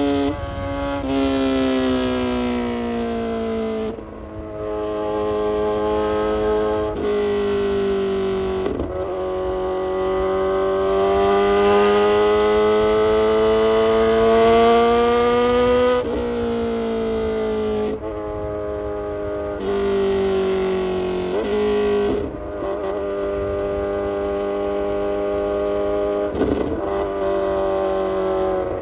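Kawasaki Z900 inline-four motorcycle with an aftermarket full exhaust system running under way, the engine note climbing slowly through a long pull in the middle and falling in sudden steps about ten times as gears change or the throttle closes.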